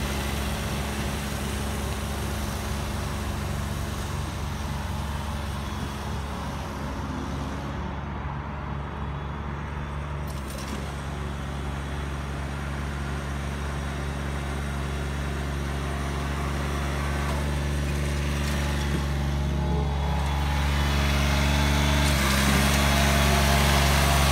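Ride-on triplex greens mower running at a steady engine pitch as it mows, growing louder over the last few seconds as it comes up close.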